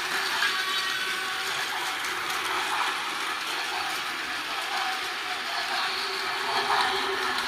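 Battery-powered Tomy Plarail toy trains running on plastic track: a steady whir of small motors and gears.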